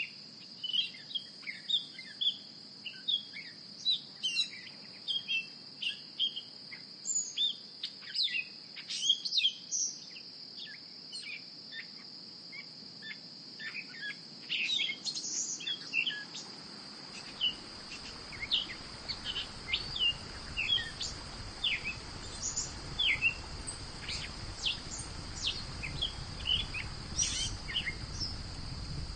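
Many birds chirping in short, scattered calls over a steady high-pitched hum. About halfway through, a low rushing noise joins underneath.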